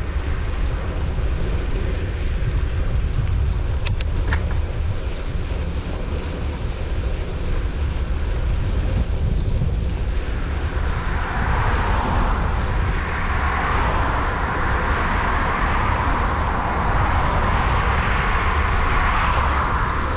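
Steady low rumble of wind buffeting the microphone while moving along. From about halfway, the tyre and engine noise of an approaching car swells as it draws near on the road alongside.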